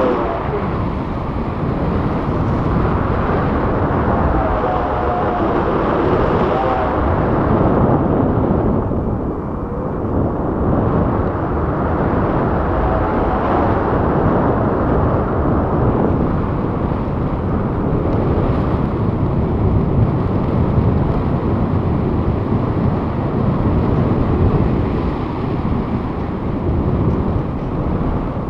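Wind buffeting the microphone of an action camera held out in the airflow of a tandem paraglider in flight: a steady low rumble with no break.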